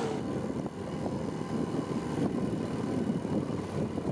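Strong wind buffeting the microphone over choppy lake water: a gusty, uneven rumble.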